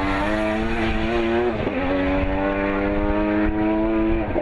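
Triple-rotor rotary engine of the RE Amemiya RX-7 pulling hard under acceleration, its pitch climbing steadily. There is a brief dip for an upshift about a second and a half in, and another near the end.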